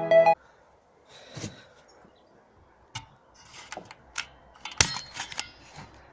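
Scattered clicks and knocks of hand work on a car's interior trim and fittings, the sharpest a single knock nearly five seconds in. Piano music cuts off just as it begins.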